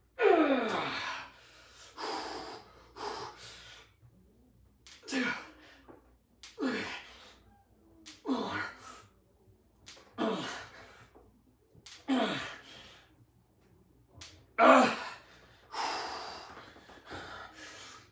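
A man's forceful, voiced exhales and grunts of effort, one with each rep of a heavy dumbbell press, coming about every two seconds. Many of them slide down in pitch, and the one about 15 seconds in is the loudest.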